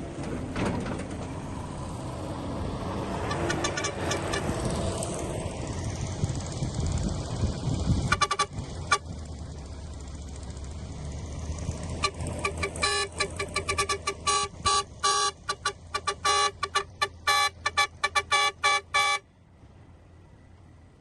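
Heavy vehicle engine running, then a vehicle horn blown in a fast series of short toots that stops abruptly shortly before the end.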